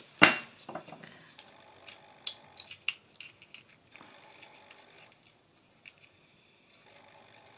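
A single sharp knock about a quarter second in, then faint rustling and small clicks of a tiny folded cardstock box being pressed shut between the fingers while its glued flaps set.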